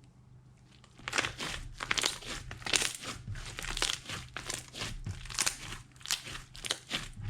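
Slime being squeezed and kneaded by hand, giving a quick run of crackling, crunchy squelches, about two or three a second, starting about a second in.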